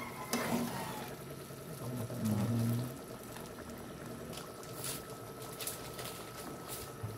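Pork menudo in tomato sauce simmering and bubbling in a frying pan, with a metal spatula stirring through it. Scattered small clicks and pops are heard throughout.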